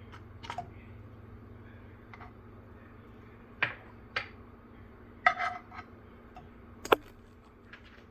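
Kitchenware handled at the stove: a handful of separate clinks and knocks of utensils, pan and containers, the sharpest one near the end, over a steady low hum.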